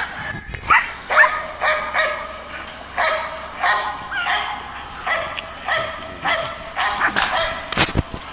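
German Shepherd puppies yipping and barking in play: a run of short, high-pitched yelps, one after another.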